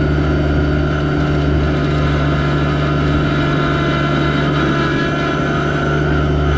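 Yanmar SA324 compact tractor's three-cylinder diesel engine running steadily under a constant throttle.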